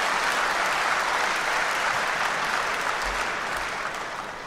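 Audience applause, a steady patter of many hands clapping that fades off over the last second or so.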